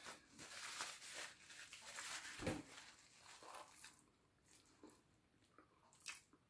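Faint rustling of a paper napkin being handled and rubbed, with a soft thud about two and a half seconds in, then near quiet with a faint click near the end.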